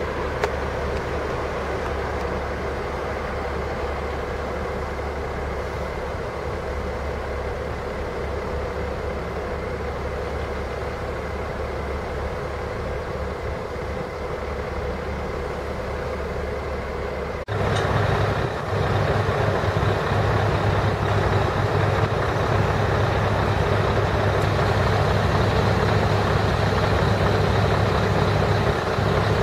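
Heavy diesel recovery vehicles (crane and truck) running steadily. About two-thirds of the way through, the sound cuts abruptly to a louder, deeper engine running close by.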